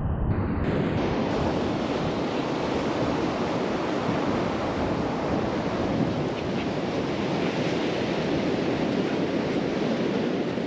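Steady wash of sea surf with wind blowing on the microphone.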